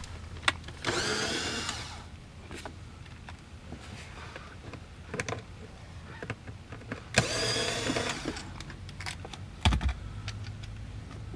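Cordless electric screwdriver running twice, about a second each time, backing out the two 7/32 screws that hold a blower motor resistor. Small handling clicks come between the runs, and there is a thump near the end as the screwdriver is set down.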